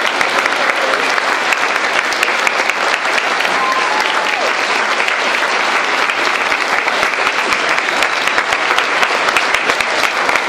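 Crowd applauding steadily in a standing ovation, dense continuous clapping with a voice calling out over it about four seconds in.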